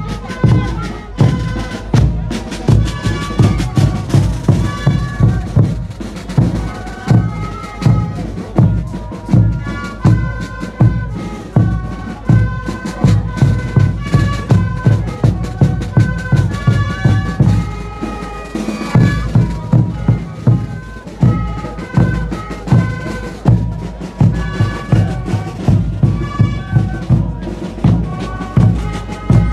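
Andean festival band music: wind instruments playing a high melody over a steady beat of large bass drums.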